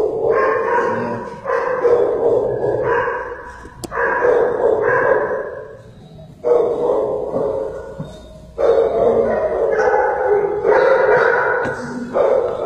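Dogs in shelter kennels barking over and over, loud barks following one another about once a second with short gaps.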